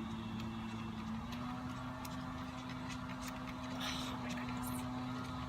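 Gas-powered leaf blower running steadily at constant throttle, a droning hum whose pitch steps up slightly about a second in, with faint rustling near the end.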